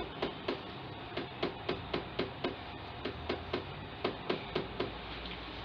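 Rapid, fairly regular ticking, about four ticks a second, each tick with a short falling tone.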